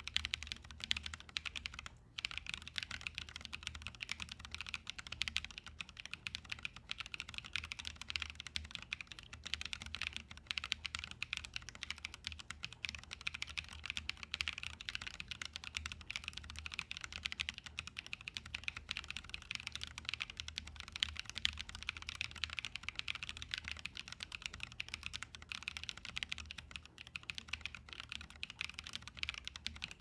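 Continuous typing on a Dolice Alice-layout mechanical keyboard: lubed Holy Panda tactile switches on an aluminum plate in a sandwich-mount case, with PBT keycaps, giving a dense stream of key presses. The typing breaks off for a moment about two seconds in.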